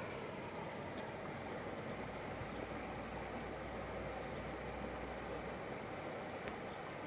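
Shallow river water flowing and rippling over a rocky bed: a steady wash of water noise.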